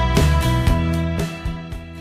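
Background music fading out.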